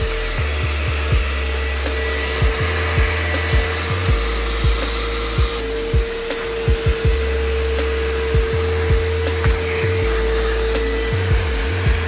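Bissell Little Green Pet Pro Heat carpet extractor running with a steady motor whine as its hand tool sprays and sucks water from a car floor mat. Background music with a steady beat plays underneath.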